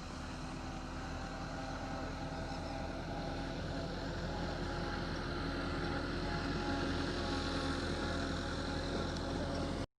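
An engine running steadily, slowly getting louder, then cutting off suddenly near the end.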